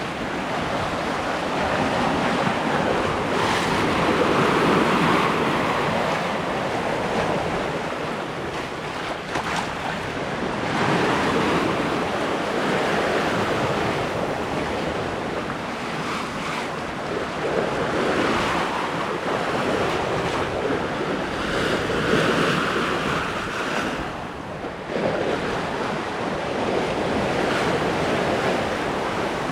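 Lake water rushing and splashing along an Island Packet sailboat's hull as it moves through the waves, swelling and easing every few seconds, with wind buffeting the microphone.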